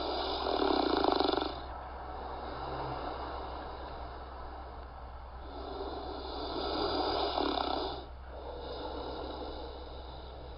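A person snoring: two loud snores about six seconds apart, each followed by a quieter breath out, over a steady low hum.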